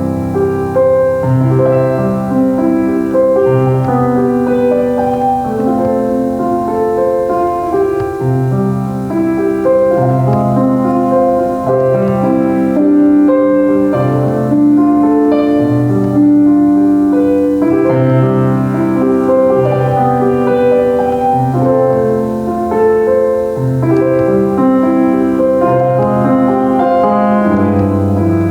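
Solo piano playing a slow, flowing hymn-like piece, with steady bass notes under a melody.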